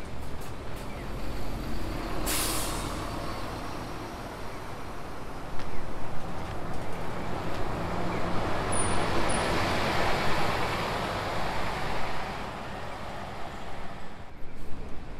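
City bus: a short, sharp hiss of compressed air from its air brakes about two seconds in. Then its engine and tyres grow louder as it drives past, and the noise fades near the end.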